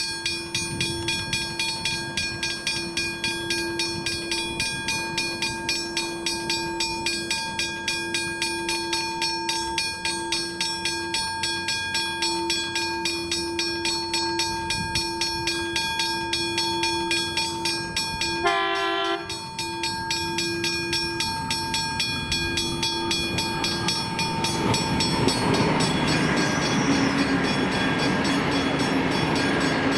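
Level crossing's Westinghouse hybrid bell ringing in rapid, even strokes as the crossing activates. About two-thirds of the way through, a train horn gives one short blast. Near the end, the rumble of an Xplorer diesel railcar set rises as it comes through the crossing.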